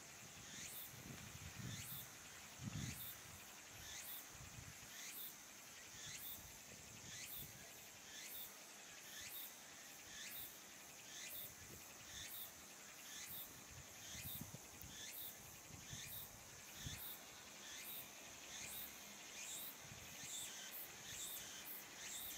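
Faint outdoor ambience: a small creature's high, falling chirp repeating evenly about one and a half times a second, over a steady hiss. A few low rumbles come near the start.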